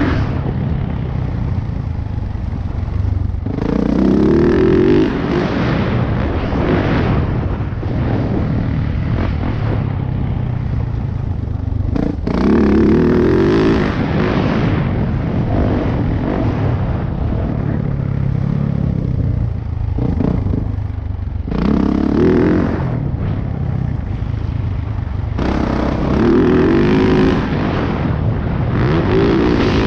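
2018 Yamaha YZ450F dirt bike's single-cylinder four-stroke engine ridden hard, revving up under full throttle and dropping back off about five times. A sharp knock about twelve seconds in.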